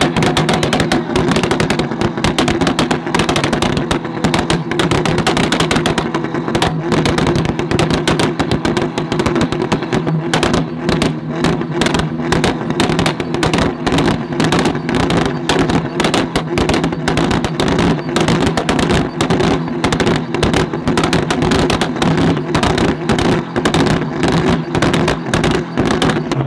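Mk4 Volkswagen Golf's engine held at steady revs while the exhaust fires a rapid, continuous string of loud pops and bangs: fuel igniting in the exhaust and spitting flames from the tailpipe.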